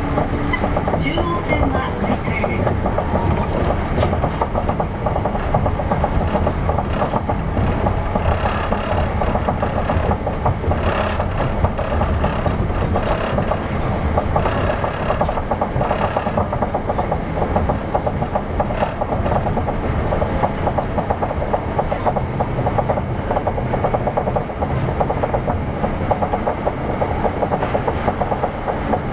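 Inside a 200 series New Tram car, a rubber-tyred automated guideway train, running at speed: a steady rumble of tyres and motors, with a few short clacks over the guideway.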